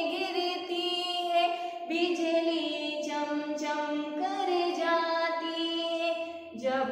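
A woman singing a Hindi devotional poem unaccompanied, holding long drawn-out notes of a second or two each.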